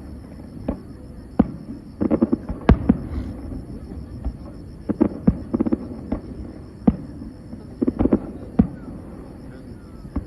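Aerial fireworks going off, a string of sharp bangs about every second or so, some coming in quick clusters of several reports.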